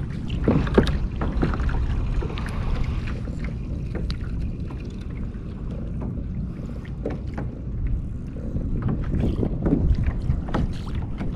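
Wind buffeting the microphone over water sounds around a kayak on the open ocean, a steady low rumble, with scattered short knocks and clicks.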